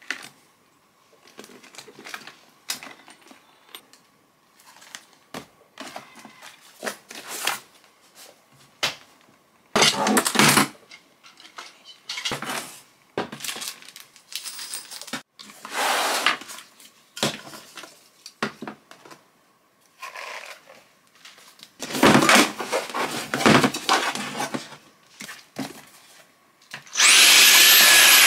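Perfume bottles and other beauty products being handled and sorted: scattered clicks and knocks, with several rustling, scraping bursts between them and the loudest burst near the end.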